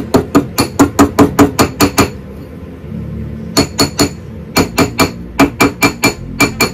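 Small jeweller's hammer tapping metal in quick, ringing strikes, about five a second. The taps stop about two seconds in, then start again in short runs.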